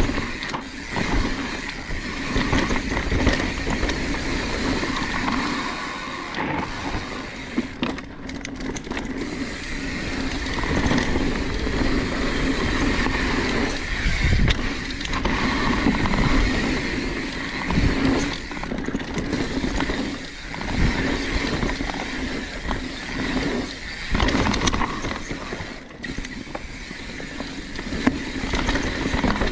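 Mountain bike riding fast down dirt singletrack: a continuous rush of tyre and wind noise, with irregular clunks and rattles as the bike hits roots and compressions.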